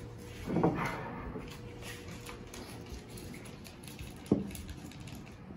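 Mango juice pouring from a carton into a ceramic mug, a faint patter of liquid. A brief louder noise comes about half a second in, and a single sharp click a little past four seconds.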